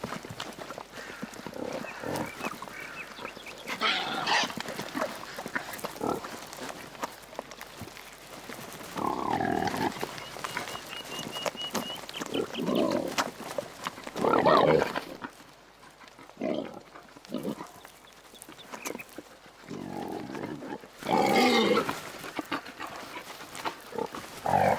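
Wild boar sows and piglets grunting and squealing in short, irregular bouts, loudest around the middle and near the end.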